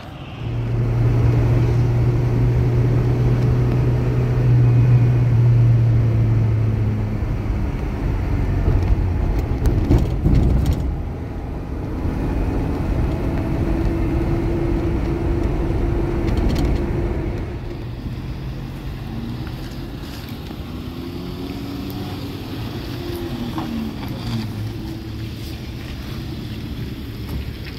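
A motor vehicle's engine running with road noise: a steady low hum for the first several seconds, then a continuous rumble with shifting engine tones.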